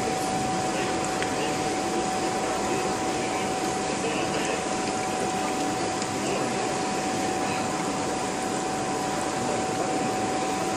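Motor of a small stainless-steel countertop machine running steadily: an even hum with a constant mid-pitched whine on top.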